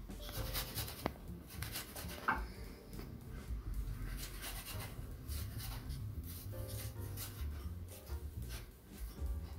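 Scratchy, irregular scraping and rubbing strokes of a kitchen utensil working food in a pan or bowl, over a low hum.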